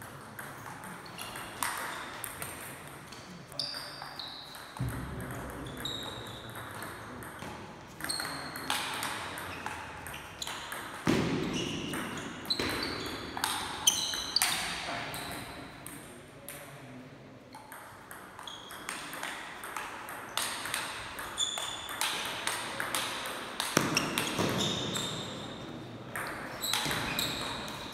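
Table tennis rallies: a plastic table tennis ball clicking back and forth off rackets and table in quick exchanges, in several bursts with short pauses between points. Short high squeaks, from the players' shoes on the hall floor, come in among the strikes.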